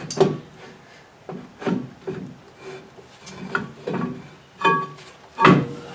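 Rear brake drum of a 1999 Toyota Tacoma being wiggled back onto the hub over freshly adjusted brake shoes: a run of metal scrapes and clunks, about one every half second to a second, some with a short ring, the loudest near the end.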